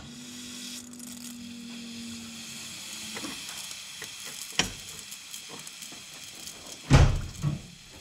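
Electric fuel pump switched on with a click, running to pressurize newly fitted fuel rails and injectors for a leak check: a steady hiss with a low hum that fades about three seconds in. Two knocks, the louder one near the end.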